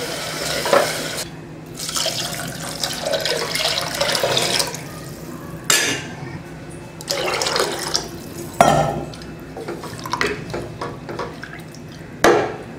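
Water being poured into an aluminium pressure cooker onto rice, lentils and fried vegetables, then the watery mix stirred with a wooden spoon, sloshing and splashing, with a few sharp knocks.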